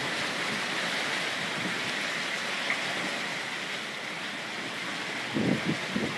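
Steady rush of wind and breaking sea around a sailing yacht under way in rough water, with a few louder, low, irregular bursts near the end.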